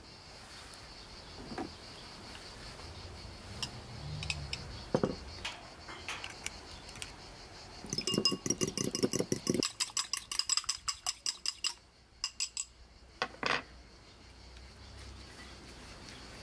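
Fork beating an egg in a small ceramic bowl: a fast, even run of metal clinks against the bowl, several a second, lasting about four seconds and stopping about twelve seconds in, then a few single clinks. Scattered light taps and clicks come before it.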